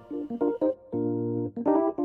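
Background instrumental music with a keyboard sound: a quick run of short notes, a chord held for about half a second just past the middle, then more notes.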